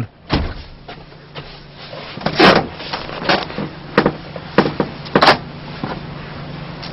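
A series of sharp knocks and clunks, about one every two-thirds of a second, over a steady low hum; the loudest comes about two and a half seconds in.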